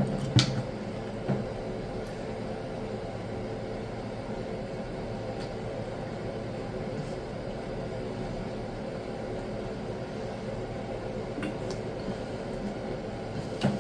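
A person sipping and swallowing soda from a plastic bottle, with a few soft clicks as the bottle is handled, the clearest just after the start. A steady low hum of room noise runs underneath.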